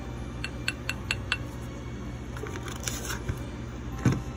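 Small hard objects being handled on a work surface: a quick run of five light clicks in the first second and a half, some light scraping around the middle, then a single dull knock near the end.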